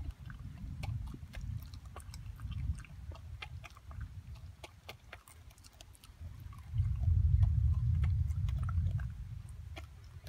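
A dog crunching maize kernels picked off the ground: many short, sharp crunches and clicks all through. A low rumble underneath grows louder for about two seconds past the middle.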